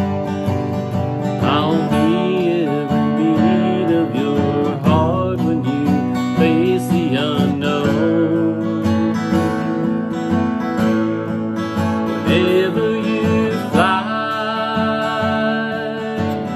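Steel-string acoustic guitar strummed, with a man's singing voice over it in long, gliding phrases.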